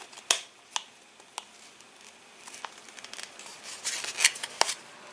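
Hard 3D-printed plastic clicking and scraping as a retaining ring is pressed into a face-mask housing to lock the filter pad in place. Several sharp single clicks are spread through, with a busier run of small clicks and rubbing from about three seconds in.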